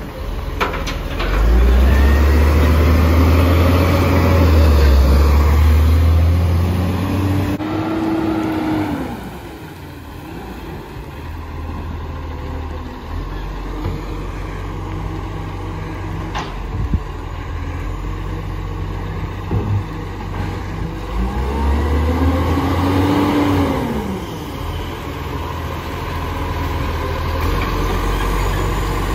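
Dennis side-loading garbage truck engine running, loud for the first several seconds then steadier, with the engine pitch rising and falling twice as the truck drives and pulls up.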